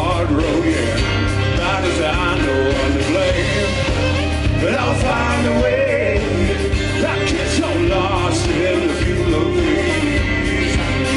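Live rock band playing through the venue's amplification: strummed acoustic guitar, electric guitar, bass and drum kit keeping a steady beat, with a voice singing over them.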